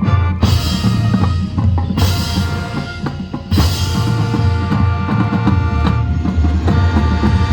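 High school marching band playing: sustained brass chords over drums, with heavy drum hits about two and three and a half seconds in.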